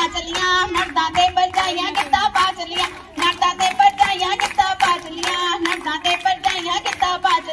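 A group of girls singing Punjabi boliyan for giddha, with steady, evenly spaced hand-clapping keeping the beat.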